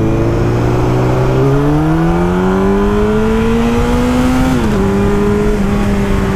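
Yamaha R1 inline-four engine, restricted to 48 PS, pulling hard under acceleration: its note climbs steadily, drops abruptly at an upshift about four and a half seconds in, then holds steady. Wind rushes over the bike-mounted microphone throughout.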